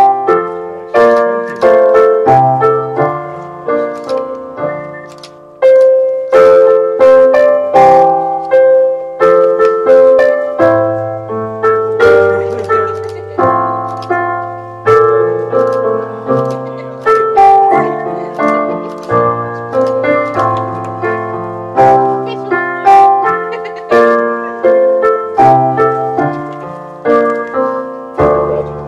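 Solo piano playing a slow, flowing piece, with melody over a bass line; the notes thin out and die away near the end.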